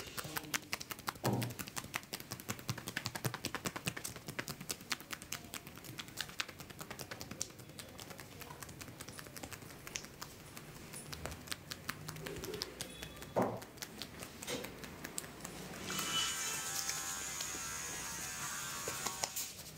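Fast hand-chopping percussion massage on a person's neck and shoulders: a quick, continuous patter of light slapping taps. Near the end it changes to hands rubbing through damp hair, a steady rustling hiss.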